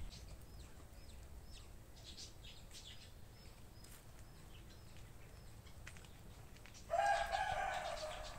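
Faint chirping of small birds, then about seven seconds in a loud call from a farmyard fowl lasting about a second and a half.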